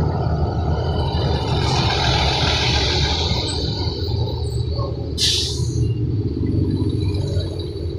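School bus engines running close by as the buses pull away, a steady low rumble. About five seconds in there is a short air-brake hiss.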